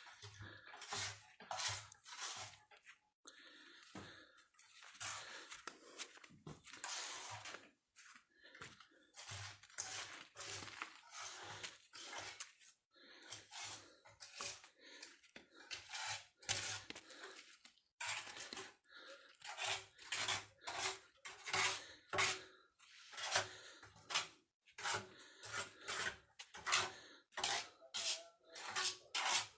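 Footsteps crunching on gritty, sandy ground, uneven at first, then steady at about two steps a second in the second half.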